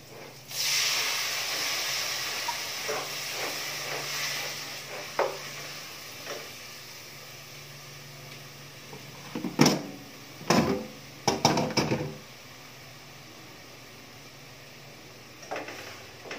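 Shiitake mushrooms tipped into a hot pan with sautéing garlic and onion start sizzling about half a second in, the sizzle fading over several seconds. About ten seconds in, a spatula clatters and scrapes against the pan in quick knocks for a couple of seconds.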